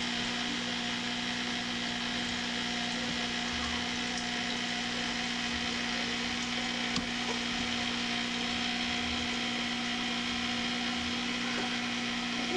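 Steady electrical hum over a constant hiss, with one faint click about seven seconds in.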